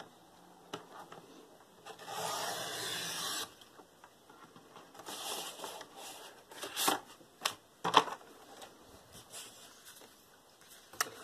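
Paper trimmer's sliding blade drawn along its rail, cutting through a sheet of printed paper: a steady scraping hiss for about a second and a half, about two seconds in. It is followed by paper rustling and a few light taps as the cut pieces are handled and set down.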